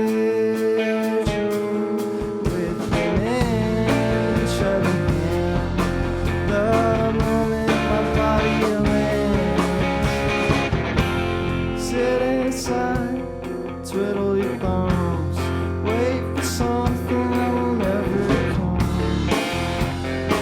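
A band playing a song with guitar and a sung vocal line, over drums. A low bass part comes in about a second in.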